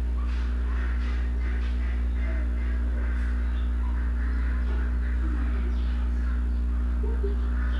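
A steady low hum with faint scattered chirps and calls over it.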